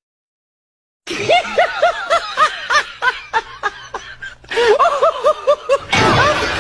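A man laughing hard in quick repeated 'ha-ha' pulses after a second of dead silence, with more laughter layered in from about four and a half seconds.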